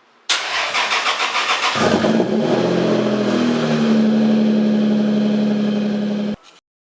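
Toyota Supra MkIV's 2JZ straight-six being started: the starter cranks in quick even pulses for about a second and a half, then the engine catches and settles into a steady idle, cut off suddenly near the end.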